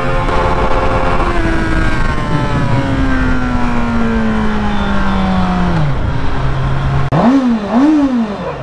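Kawasaki Z900's inline-four engine running high in first gear; about a second in the throttle closes and the engine note falls steadily as the bike slows, settling to idle. Near the end a Honda CBR650R's inline-four is revved twice while standing, the pitch rising and falling each time.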